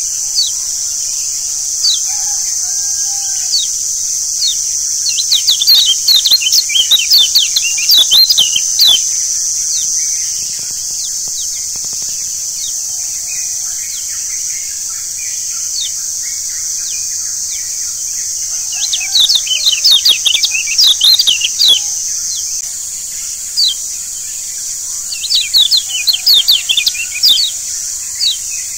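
Kecial kuning (Lombok yellow white-eye, a Zosterops) twittering in fast flurries of short, high chirps, three dense runs with scattered single notes between. Under it runs a steady high insect drone.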